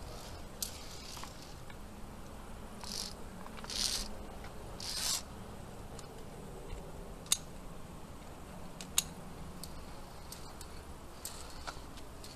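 Climber's movement noise on rock: a few short scraping hisses in the first half, then two sharp clicks about a second and a half apart.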